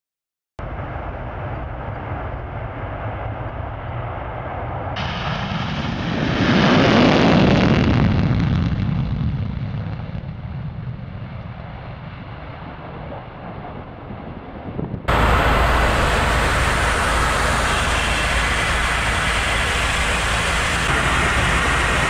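Tu-22M3 bomber's two turbofan jet engines at takeoff power as it rolls down the runway; the noise swells, is loudest about seven seconds in, then fades as the aircraft moves away. About fifteen seconds in there is an abrupt switch to a steady, louder engine and airflow noise heard from inside the bomber in flight.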